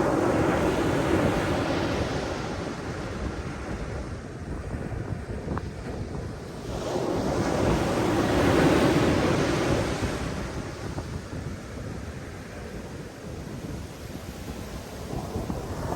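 Ocean waves surging and ebbing on the shore, one wave swelling at the start and another a little past halfway, each falling back to a lower wash. Wind buffets the microphone with a steady low rumble.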